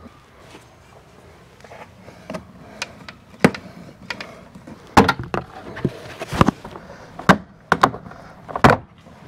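Plastic interior trim on the rear door of a Lexus GX460 being pried off with a plastic trim tool: a string of sharp clicks and snaps as the panel's snap-in retaining clips pop loose, coming closer together in the second half.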